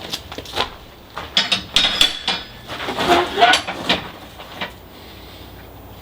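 Steel bar stock clinking and clanking as it is handled and set against metal, a series of sharp knocks with brief metallic ringing that die away about five seconds in.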